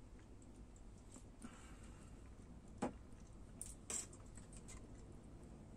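Quiet room with a few faint, short clicks and taps from fingers handling a piece of nigiri sushi and lifting it to the mouth, the clearest about three and four seconds in.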